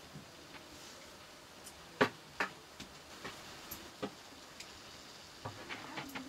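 Scattered sharp clicks and knocks at irregular intervals over a faint room hiss. The loudest comes about two seconds in, with a quick cluster of smaller ones near the end.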